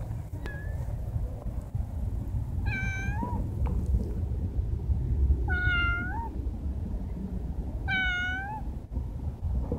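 Brown tabby cat meowing three times, about two and a half seconds apart. Each meow is short, dipping in pitch and then rising at the end.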